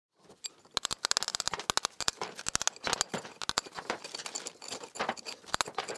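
Steel chisel raking old mortar out of a joint between bricks: a dense, irregular run of sharp, gritty clicks and crackles as the mortar crumbles, starting about a second in.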